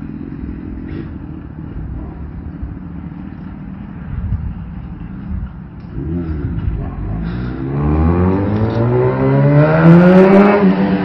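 Suzuki GSX-S1000F's inline-four engine idling through an aftermarket M4 GP full exhaust system, with a short throttle blip about six seconds in, then revving up steadily and starting to drop back near the end.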